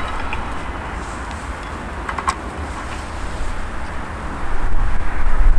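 Wind rumbling on the microphone, gusting louder about four and a half seconds in, with a single short click about two seconds in.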